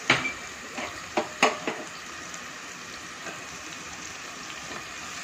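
Grated pumpkin, spring onion and ginger–green chili paste sizzling steadily in hot oil in a pan, with a few sharp clicks in the first two seconds.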